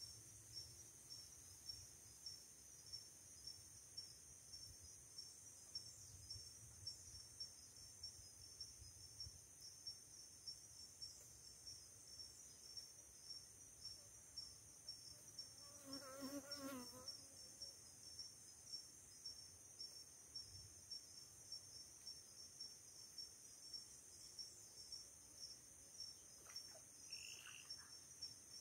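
Faint, steady chorus of insects chirping in a high-pitched, evenly pulsing drone. A brief, lower, wavering call sounds once about halfway through, and a short high chirp comes near the end.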